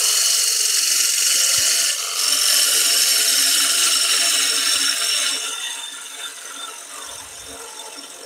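Turning gouge cutting the outside edge of a spinning wooden bowl on a lathe: a steady shearing noise of shavings being cut, with the lathe's steady hum beneath. It dips briefly about two seconds in, then eases off and fades over the last few seconds as the cut gets lighter.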